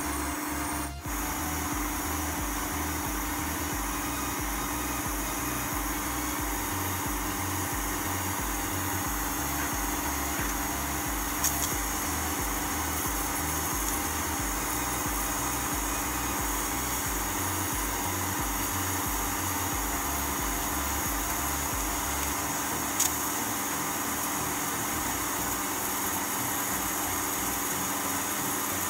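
Steady hiss and hum of a pressure cooker heating on an induction cooktop. Two faint clicks come about 11 and 23 seconds in.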